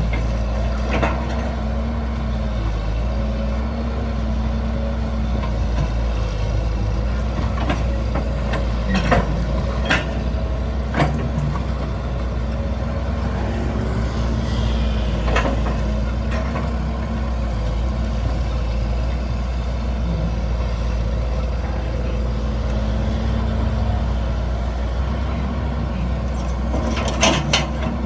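Hydraulic excavator's diesel engine running steadily, its note rising and dipping again and again as the hydraulics take load, with several sharp knocks from the machine's work, a couple of them close together near the end.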